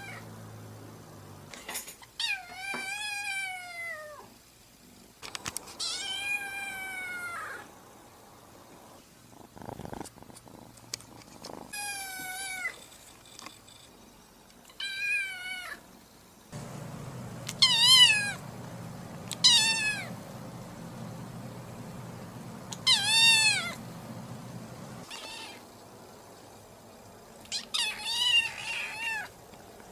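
Kitten meowing over and over: about nine high-pitched meows, each rising then falling, with pauses of a second or more between them. A low steady hum sits under the calls from about the middle of the stretch until a few seconds later.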